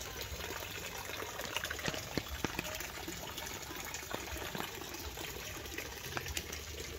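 Thin stream of water pouring from a bamboo spout into a small pond: a steady trickling splash with many small irregular drips.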